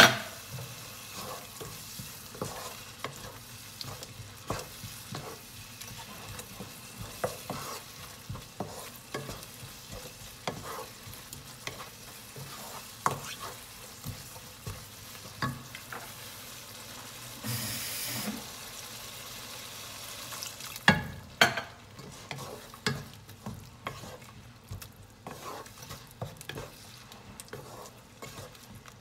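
Watery curry sauce of onion, spices and water sizzling and bubbling in a pan, stirred with a wooden spatula that scrapes and taps the pan over and over. A brief louder hiss a little past the middle, and one sharp louder knock against the pan about two-thirds of the way through.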